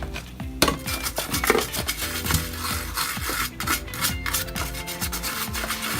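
A dirty section of an oven control circuit board being scrubbed clean: a rapid, irregular run of rubbing strokes.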